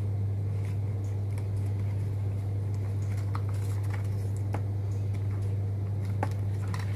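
A steady low hum, with faint scattered clicks and rustles of hands wrapping cloth tape around a battery wire connector.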